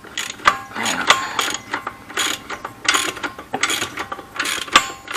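Socket ratchet wrench clicking through a series of quick back-and-forth strokes, loosening the locking bolts that hold an ATV's chain-adjusting rear axle.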